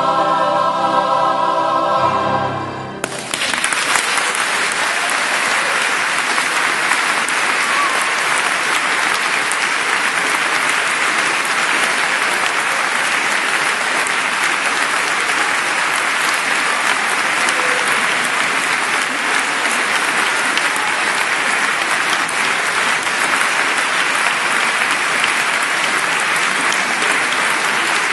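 A large mixed choir holds a closing chord that cuts off about three seconds in, and the audience then breaks into steady applause that runs on.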